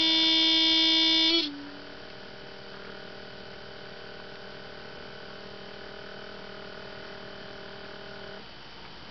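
A loud, steady in-car warning buzzer tone cuts off about a second and a half in, leaving a faint steady electrical hum from the 1987 Mercedes 300D diesel with the ignition on, waiting through glow-plug preheat before a cold start. The hum dips briefly near the end.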